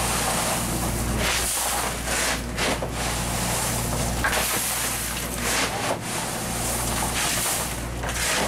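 Crushed ice being scooped from a plastic barrel and dumped onto fish in a fish box, coming as several short rattling, hissing bursts. Under it the boat's engine drones steadily.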